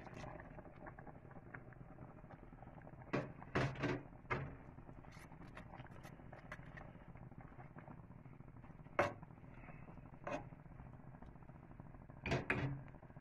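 A utensil knocking and clinking against a cooking pot as vegetables are pushed into the soup: a few sharp knocks about three to four seconds in, single ones near nine and ten seconds, and two more near the end, over a low steady background.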